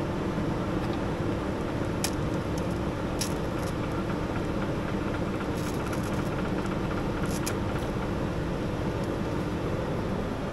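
Soft-serve ice cream machine running with a steady mechanical hum while it dispenses into a cone, with a few faint clicks.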